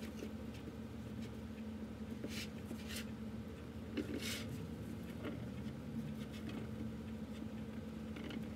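Hands pressing and spreading oiled pizza dough across a metal pizza pan: soft rubbing and patting with a few brief scuffs, over a steady low hum.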